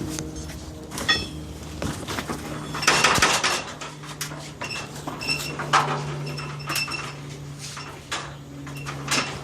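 Irregular metal clanks and knocks of tools being carried up a ladder, over a steady low hum. A few short high chirps come in around the middle.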